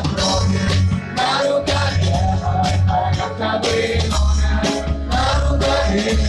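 A live rock band playing an instrumental passage: a steady drum beat, a heavy bass line and a lead melody, with no lyrics sung.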